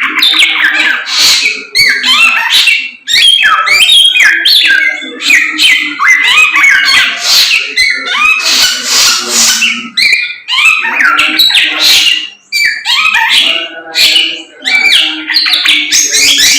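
Caged samyong (Chinese hwamei) singing loudly in a long, varied run of quick sliding whistled phrases, with short pauses about three, ten and twelve seconds in.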